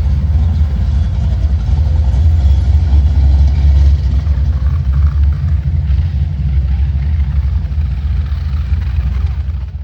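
Steady, loud low rumble of a running vehicle engine, even in pitch throughout, cutting off abruptly at the end.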